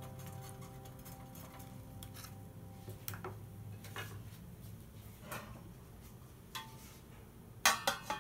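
Sharp clicks and taps of a wooden spatula against an aluminium kadai and being set down on a ceramic plate, then a steel pot lid clattering onto the pan near the end, the loudest sound.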